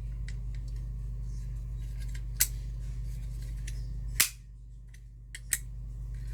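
Metal clicks and snaps from a 270-SPO fire alarm pull station's mechanism being worked by hand while it is reset, a few separate clicks with the sharpest about four seconds in.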